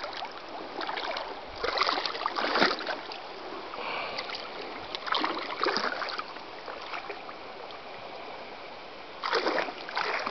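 Water splashing in the shallows in three short irregular bouts over a steady rush of water, as a large rainbow trout is landed.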